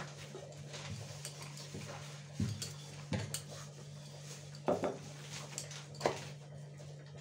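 Wooden rolling pin working paratha dough on a rolling surface, with about four sharp knocks and clinks of the pin and a steel plate as the rolled paratha is lifted onto the plate. A steady low hum runs underneath.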